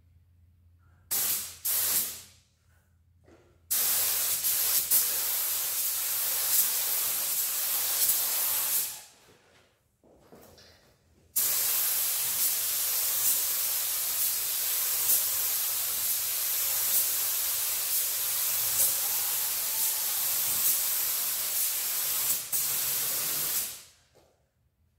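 Paint spray gun spraying a first coat of primer onto a pickup truck body: two short bursts about a second in, a steady pass of about five seconds, a short pause, then a long steady hiss of about twelve seconds that cuts off near the end.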